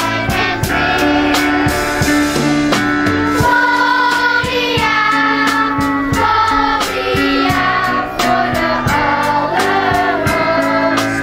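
Children's choir singing, with instrumental accompaniment and a steady beat.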